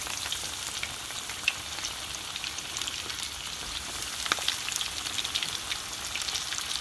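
Breaded fish fingers deep-frying in hot oil in a cast-iron skillet as more pieces are laid in: a steady sizzle with many small crackles and pops.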